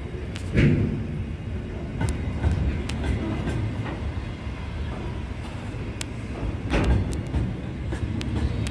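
Container freight train passing close by: a steady low rumble of the wagons rolling, with many wheel clicks and clanks on the rails and louder clunks about half a second in and again near seven seconds.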